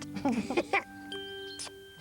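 A short musical chime: one bell-like note rings out about a second in and slowly fades, marking the end of the story segment.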